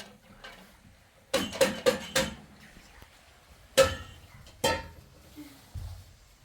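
Dishes and pots clattering: a quick run of four ringing knocks, then two more single knocks a little later.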